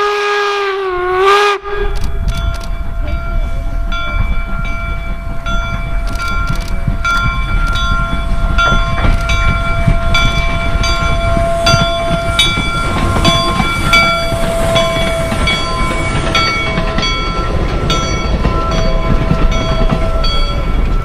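Union Pacific No. 119 4-4-0 steam locomotive: a steam whistle blast that dips slightly in pitch and stops about a second and a half in. Then the locomotive runs past with a steady rumble and clatter, its bell ringing over it again and again.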